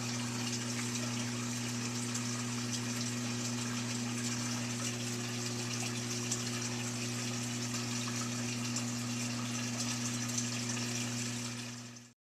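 Whirlpool Duet Sport washer's drain pump running with a steady hum and water rushing through it as it pumps the tub out. It is working normally again now that the jam in its impeller is cleared. The sound fades out near the end.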